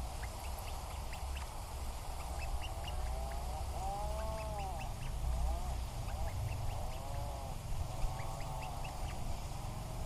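Atlantic puffins calling: several drawn-out calls that rise and fall in pitch, the strongest about four seconds in. Short high chirps are scattered throughout, over a steady low rumble.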